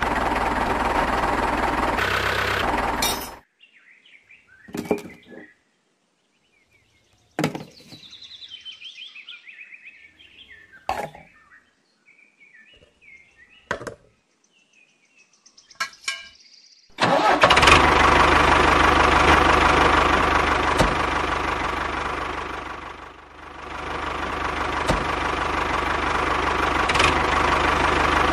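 A small motor running steadily, cutting off about three seconds in. A few sharp clicks and knocks follow, then the motor starts again and runs on, briefly dropping in level and picking back up.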